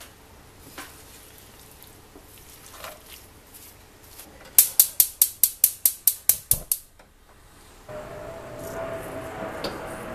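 Gas hob's spark igniter clicking rapidly, about five sharp clicks a second for a couple of seconds, ending in a soft low thump as the burner lights. About eight seconds in, a steady hiss with a faint hum starts.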